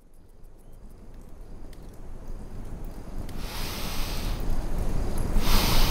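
Wind ambience fading in from silence and growing steadily louder, with two stronger hissing gusts, one about halfway through and one near the end.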